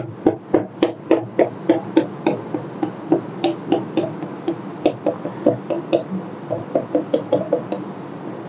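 Chalk tapped against a blackboard to stipple dots: quick, sharp taps about three to four a second, thinning out in the second half and stopping shortly before the end.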